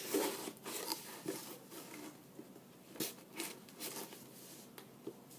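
A pocketknife cutting open a package, with irregular scraping, clicks and crinkling as the blade works through the tape and wrapping.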